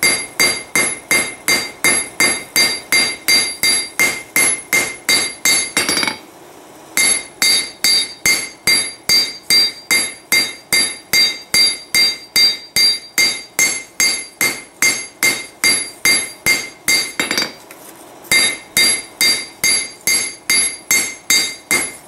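Hand hammer striking a red-hot Heller file (farrier's rasp) on a steel anvil to flatten its teeth. Steady blows at about three a second, each with a bright metallic ring, stopping briefly twice, about six and seventeen seconds in.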